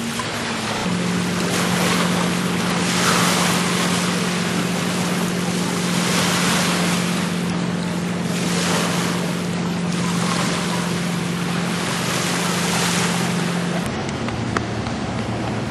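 Water washing against a boat's hull in surges every couple of seconds, with wind on the microphone and a steady boat-engine hum that cuts off near the end.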